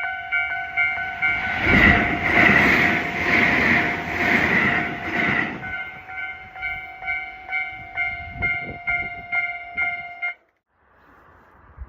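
Tobu-type electronic level-crossing bell ringing at about two and a half strikes a second. From about two to six seconds in, a train passes over the crossing, its wheels clattering in a steady rhythm. The bell cuts off suddenly about ten seconds in.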